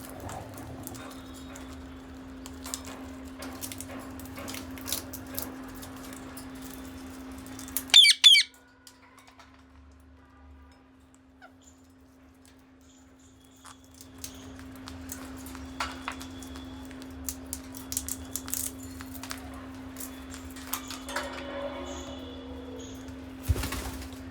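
Pet parrots cracking and nibbling peanut shells, many small irregular clicks over a steady low hum, with one loud, short parrot squawk about a third of the way through and a sharp knock near the end.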